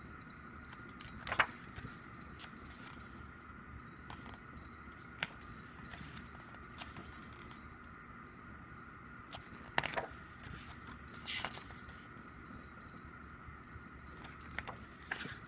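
Pages of a glossy album photo book being turned by hand: a few short paper flips and rustles several seconds apart, the loudest about a second in and again around ten to eleven seconds in, over a faint steady hum.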